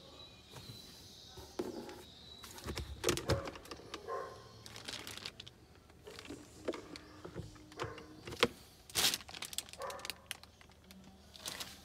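Several sharp clicks and plastic knocks as a Tata Harrier's glovebox is opened and shut and the dashboard trim is handled.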